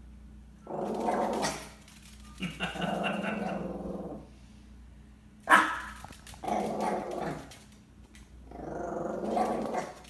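Chihuahua growling playfully at a fly in about four spells of a second or so each, with one sharp bark about halfway through, the loudest sound.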